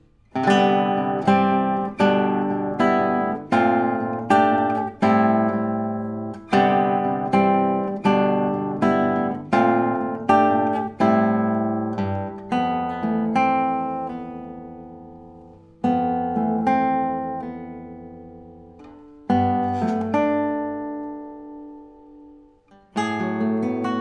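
Solo nylon-string classical guitar played fingerstyle: a steady run of plucked chords, about one or two a second. About halfway through it slows to a few long chords left to ring and die away, then picks up again near the end.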